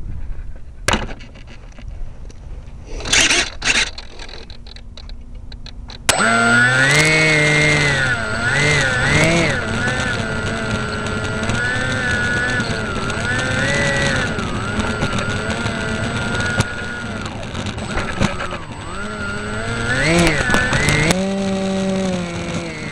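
A few clicks and rustles, then about six seconds in the model plane's motor starts abruptly and runs loudly, its pitch wavering up and down as it taxis, heard from a camera mounted on the plane.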